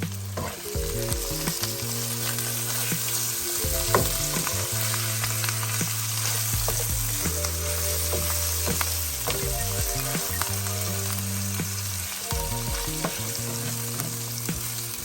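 Oyster mushrooms frying in olive oil in a pan, a steady sizzle with occasional taps of stirring. Soft background music with held low notes runs underneath.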